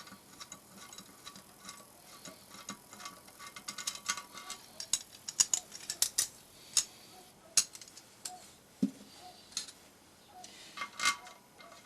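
Light, irregular metallic clicks and taps of a hand tool and a small screw being worked out of a Lada Niva cylinder head, with one duller knock partway through.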